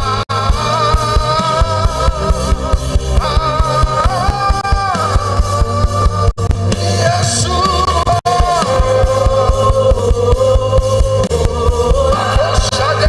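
Live gospel praise band playing, with a held, gliding sung melody over steady bass and drums. The sound cuts out for an instant three times.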